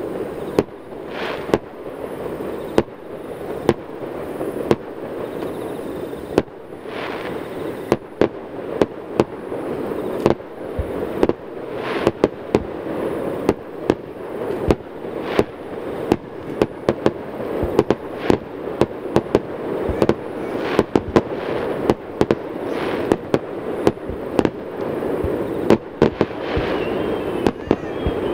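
Fireworks display: aerial shells going off in frequent sharp bangs at irregular intervals, several every couple of seconds, over a steady low rumble.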